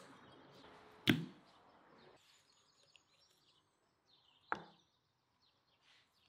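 Two thuds of a whole raw chicken being handled on a wooden cutting board: a heavy one about a second in and a lighter one at about four and a half seconds.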